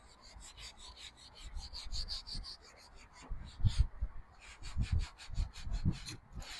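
Leather car seat being rubbed down by hand with a cleaning pad in quick back-and-forth strokes, several a second, cleaning off dirt and old paint to prep the leather for respraying. The scrubbing pauses briefly in the middle.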